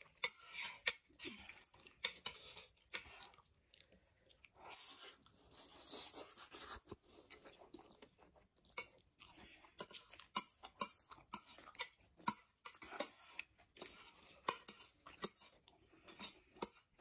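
Two people eating ramen noodles and momos: wet chewing and slurping of noodles, with short clicks of chopsticks against the plates.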